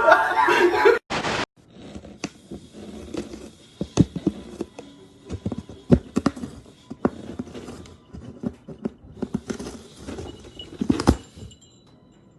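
A string of irregular taps, knocks and clicks over faint background noise, stopping shortly before the end.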